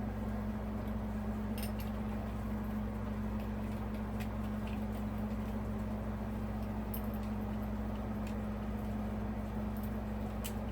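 A steady low hum with one strong tone, with scattered faint clicks and light rattles of small parts being handled during ceiling fan assembly.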